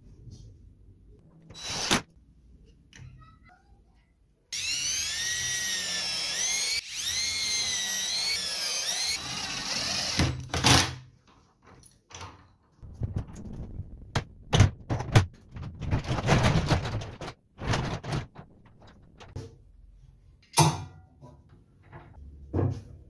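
Power drill running for about four seconds, its pitch wavering as the trigger is worked while driving screws. Before and after it come sharp knocks, clunks and clatter of wood and metal hardware being handled.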